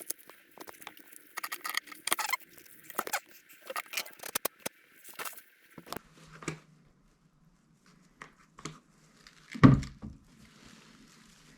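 Small hand-tool work on the tablet: dense clicking, tapping and scraping of plastic pry tools against its frame and screen. After about six seconds the steady hiss stops and the clicks thin out, and one louder knock follows just under ten seconds in.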